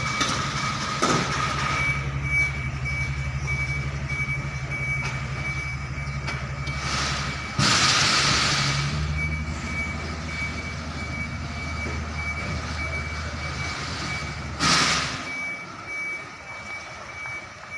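A truck engine idling with a steady low drone while a reversing alarm beeps over and over. A loud hiss of air cuts in about eight seconds in for over a second, and a shorter one near fifteen seconds, after which the engine drone stops.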